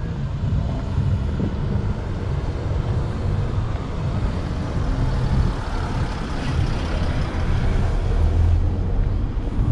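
Low, steady rumble of a motor vehicle's engine, with a deeper drone near the end.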